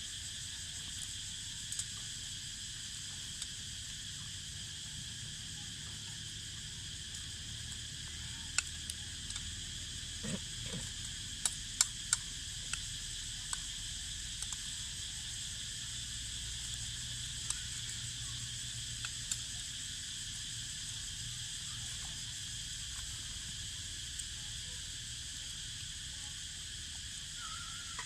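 Cicadas singing in a steady, high-pitched chorus, with a few sharp clicks and taps about a third of the way in.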